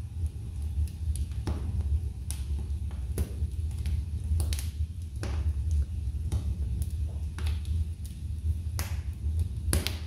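Wood logs burning in an open fireplace, crackling with about a dozen sharp pops at irregular intervals over a steady low rumble.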